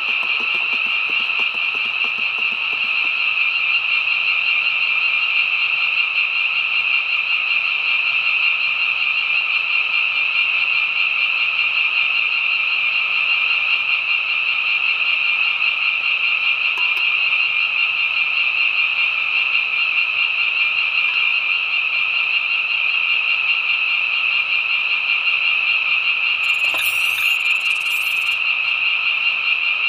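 Dense chorus of frogs calling continuously, a steady unbroken drone of calls at a few stacked pitches.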